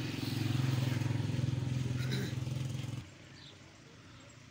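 Engine running with a steady low drone that swells and then cuts off abruptly about three seconds in.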